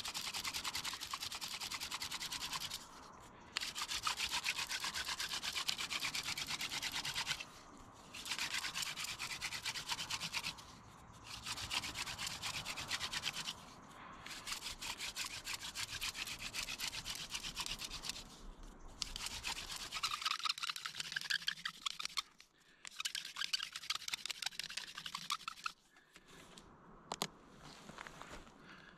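Hand-drill friction fire set: a wooden spindle spun back and forth between the palms in a burnt-in fireboard notch, making a fast, dense wood-on-wood rubbing. Short pauses come every few seconds, and the rubbing stops near the end. Smoke is already rising, which is a sign the drilling is building a glowing ember in the carbon dust.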